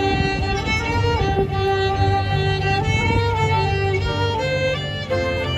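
Live folk trio playing an instrumental passage of a traditional ballad. A fiddle carries the melody with a flute, over keyboard chords and a bass line that changes note about once a second.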